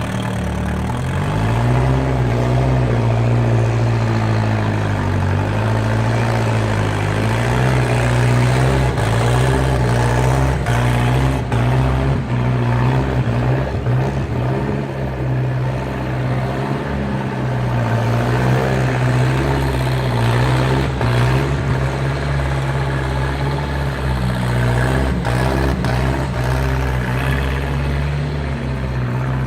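Skid steer engine running steadily under changing load, its pitch dipping and recovering now and then, with a few short knocks from the machine working rubble.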